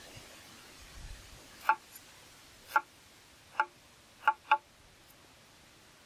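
Small knife cutting through a hard root held in the hand: five short, sharp snapping cuts about a second apart, the last two in quick succession.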